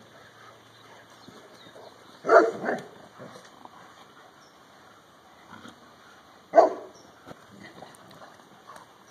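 Bernese Mountain Dogs barking in play: two quick barks a little over two seconds in, then one more bark about six and a half seconds in.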